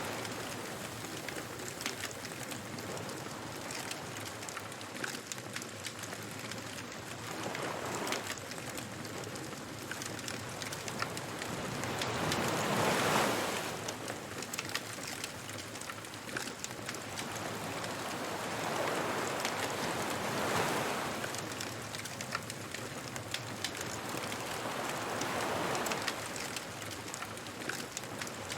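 Beach bonfire crackling steadily, with ocean waves washing in and receding every five to seven seconds; the biggest wave comes about thirteen seconds in.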